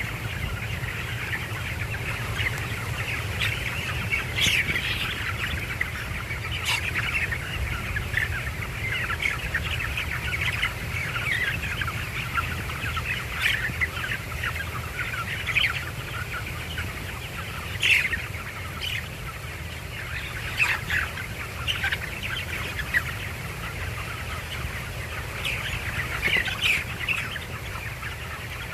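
A brood of young chicks peeping continuously, many short chirps overlapping, with a few louder calls standing out, over a steady low hum.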